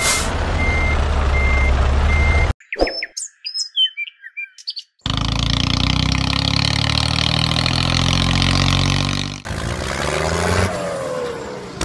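Vehicle engine running with repeated beeps like a reversing alarm for the first two seconds. Then come a couple of seconds of bird chirps, and then an engine running steadily again, its pitch sliding up and down near the end.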